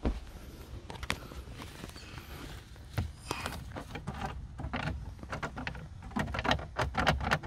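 A wire coat hanger being pushed through a car door's inner cavity as a fish tape, tapping and scraping against the plastic and metal inside in irregular clicks and knocks that come faster near the end.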